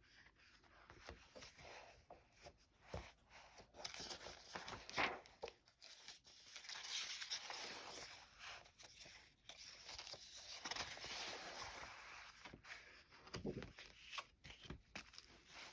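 Paper rustling and crinkling as the pages of a vintage paper doll book are turned and handled. It comes in soft, irregular swells with small taps.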